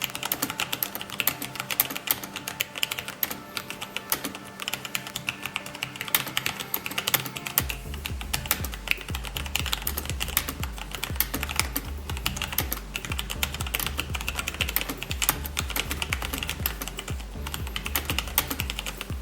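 Fast, continuous typing on a Logitech G513 Carbon keyboard with Romer-G Tactile mechanical switches: a dense run of key clicks. It plays over background music, whose bass beat comes in about a third of the way through.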